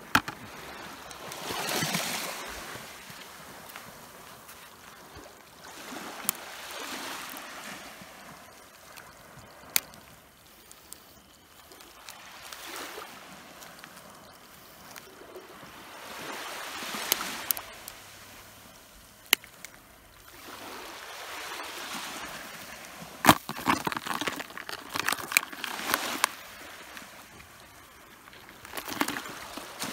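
Water sloshing and trickling in swells that come and go every few seconds. Scattered sharp clicks and knocks, bunched together late on, come from the landing net and plastic bucket being handled.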